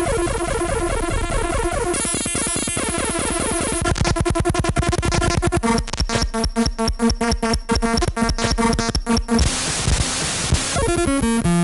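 Mock Emergency Alert System alarm: harsh, layered electronic tones, breaking about halfway into fast stuttering pulses over a steady low tone, then a burst of static near the end before stepping tones return.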